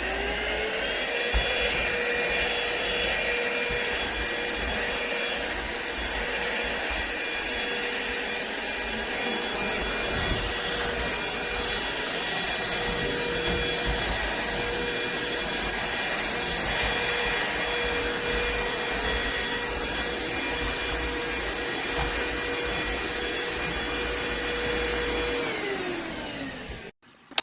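Cordless vacuum cleaner motor spinning up to a steady high whine with a rush of airflow, running evenly for most of the stretch, then winding down and stopping near the end.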